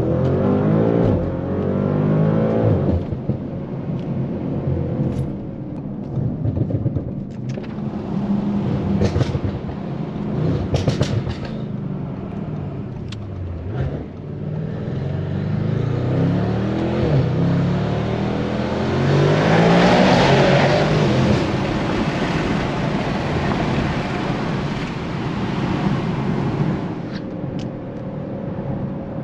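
Tuned Audi RS7 C8's 4.0-litre twin-turbo V8 pulling hard through the gears, its note climbing and dropping back at each upshift, with a few sharp clicks and cracks mid-way. A broad rush of wind and tyre noise builds with speed and peaks near the two-thirds mark.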